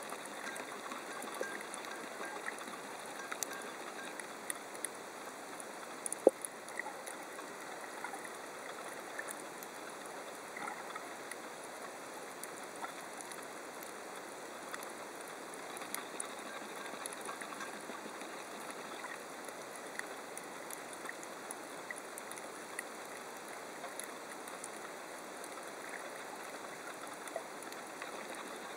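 Underwater ambience over a coral reef: a steady hiss scattered with faint sharp clicks and crackles, and one louder click about six seconds in.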